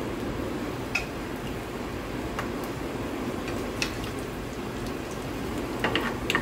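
Cumin seeds, nigella seeds, curry leaves and round dried red chillies sizzling steadily in hot oil for a tempering (tadka), with a few scattered pops. Near the end a wooden spoon stirs them in the pan.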